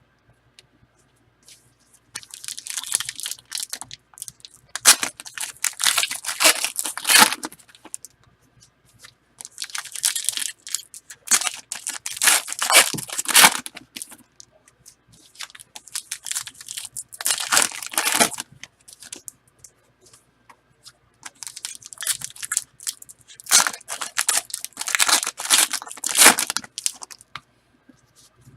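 Foil wrappers of football trading-card packs being torn open and crinkled by hand, in about seven bouts of one to three seconds each with short pauses between.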